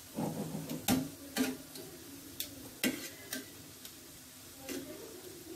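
Metal tongs clicking and scraping against a stainless steel frying pan as briouat pastries are turned in hot oil, over a faint steady sizzle of frying. There are about six irregular clicks.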